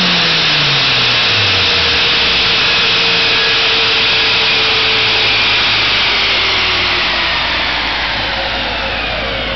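Honda GSR 1.8-litre DOHC VTEC four-cylinder in a Civic on a chassis dyno, its revs falling quickly off throttle at the end of a pull. The driven tyres and dyno rollers then coast down with a steady rushing hiss and a faint whine that slowly drops in pitch, fading gradually near the end.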